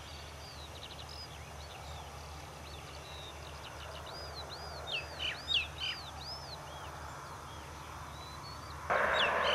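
Birds calling: a run of about five arched whistled notes in the middle, with shorter chirps around them, over a steady low hum. Near the end a loud rushing noise starts suddenly.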